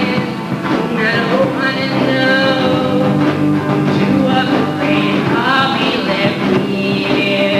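Live acoustic emo song: acoustic guitar chords with sung vocals held and sliding between notes.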